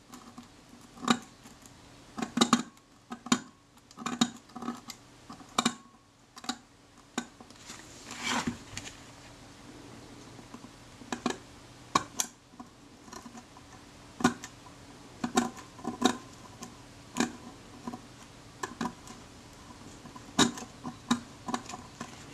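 Small metal tool clicking and scraping against the aluminium back of a Kodak Retina IIa camera as it works under the edge of the leather covering and prises it off, in irregular light clicks about once or twice a second, with a longer scrape about eight seconds in.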